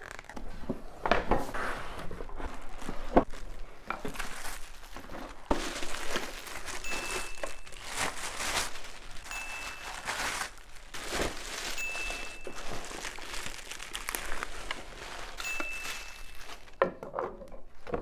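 Plastic packaging bags crinkling and rustling as blender parts are unwrapped, with knocks and clicks from the cardboard packing insert and parts being handled. A short high tone sounds four times.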